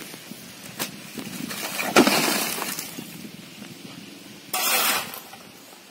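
A plastered brick wall pushed over by hand, crashing to the ground about two seconds in, with bricks and plaster breaking and clattering for nearly a second afterwards. A sharp knock comes just before the fall, and a brief rush of noise comes near the end.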